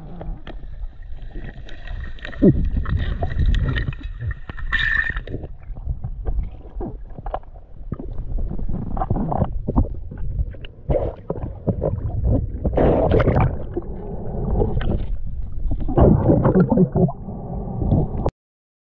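Muffled underwater noise picked up by a camera in a waterproof housing: irregular low rumbling and sloshing of water with frequent knocks as the diver moves. It cuts off abruptly near the end.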